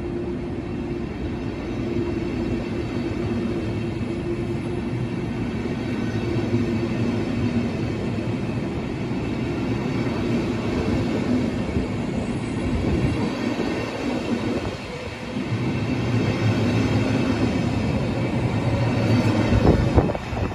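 Flixtrain passenger coaches rolling past as the train pulls out of the station, steel wheels rumbling on the rails over a steady low hum, getting slightly louder as it goes. Near the end, as the last coach passes, a few sharp knocks of wheels over the rail joints.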